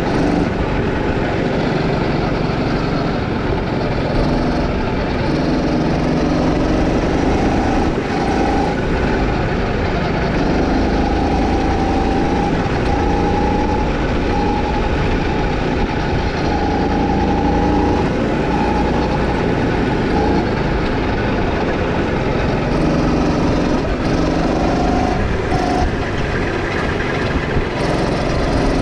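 Go-kart engine running hard under the driver as the kart laps the track, its pitch shifting up and down with speed through the corners.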